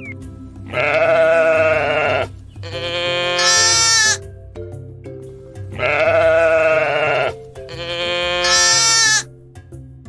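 Sheep bleating: four long bleats, about a second and a half each, in two identical pairs, over background music.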